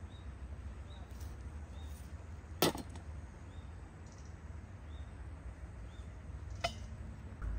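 Two sharp clicks, the first louder, over a steady low rumble, with faint short high chirps repeating about once a second.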